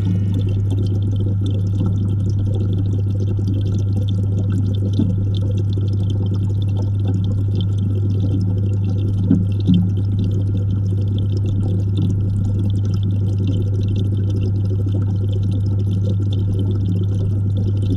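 Aquarium water heard from inside the tank: a steady low hum from the tank equipment under a continuous wash of moving, bubbling water, with two brief knocks about nine and a half seconds in.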